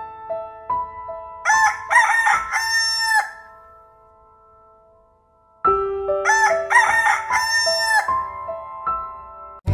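A rooster crowing twice, a few seconds apart, over gentle music of held notes, with a quiet lull between the two crows.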